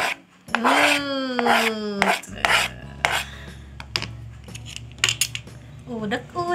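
Steel kitchen knife scraping and tapping on a plastic cutting board and plastic tub as chopped coriander leaves are scraped off, with scattered sharp clicks. A drawn-out tone slides down in pitch about a second in, and a low steady hum comes in after about two seconds.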